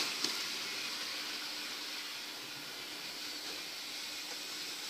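Steady hiss with a faint low hum: a Hornby OO-gauge model train running around its track under power.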